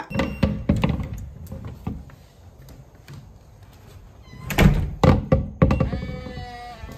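A run of knocks and thumps, loudest in a cluster of heavy thuds about two-thirds of the way through, followed by a short squeaky pitched sound near the end.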